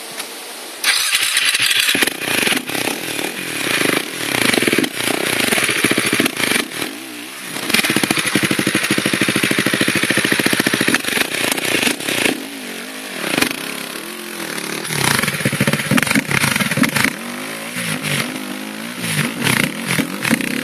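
Dirt bike engine revving hard in repeated short bursts as the throttle is opened and shut, with a longer stretch held at high revs about eight seconds in: the bike labouring up a steep rocky trail.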